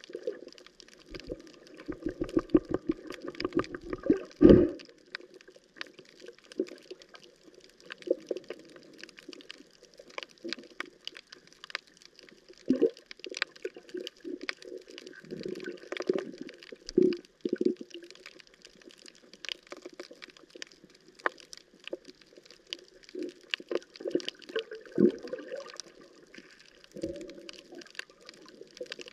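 Underwater reef ambience: a steady crackle of sharp clicks from snapping shrimp, with louder bursts of rapid rattling, the densest from about a second in to four and a half seconds and several more later.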